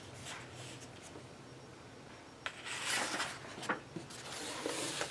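Hands handling and sliding over the paper pages of a softcover colouring book: a sharp click about two and a half seconds in, then papery rustling and swishes, with another swish near the end.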